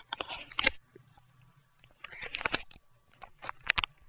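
Three short bursts of crackly clicking: one at the start, one about two seconds in and one near the end, over a faint hum.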